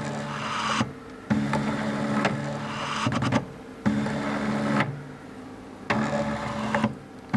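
Stepper motor of a DIY 3D-printed ventilator driving its belt and pulley back and forth on one axis, one stroke per breath. The motor whines steadily for a second or two at a time, with short pauses between strokes and bursts of clicks as it starts and reverses.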